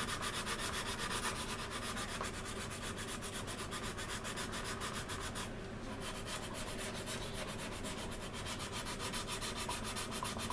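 Quick, regular back-and-forth sanding strokes on a resin model aircraft wing, smoothing a filled seam, with a short pause about halfway through.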